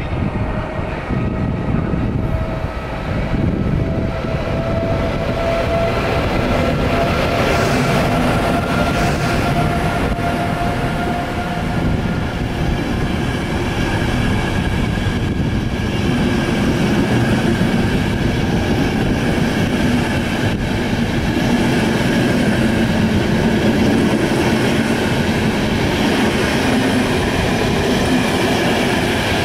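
Passenger train hauled by a class 383 Siemens Vectron electric locomotive running through the station. There is a whine that rises slightly in pitch over the first dozen seconds as the locomotive goes by, then the steady rumble of the coaches rolling past on the rails.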